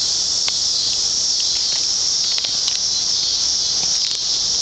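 Loud, steady buzzing drone of cicadas in chorus, high-pitched and unbroken.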